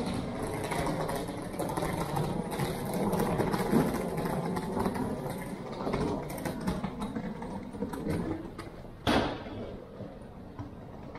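Steady mechanical rumble and clatter with scattered small clicks, and one short, sharp, loud burst about nine seconds in.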